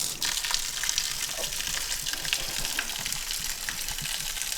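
Steady crackling hiss of running water, with faint scattered ticks.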